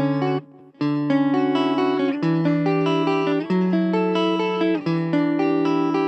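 Electric guitar (a Suhr Classic Pro) played through a Blackstar Fly 3 mini amp on its clean channel: picked chords and arpeggios that ring out with overlapping notes. There is a brief break about half a second in, then continuous playing.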